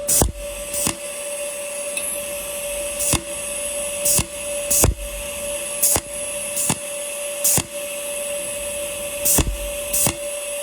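Welding machine running with a steady hum and a fixed whine while a leaking weld on a stainless steel cup is repair-welded with filler wire, broken by sharp clicks at irregular intervals, about ten of them.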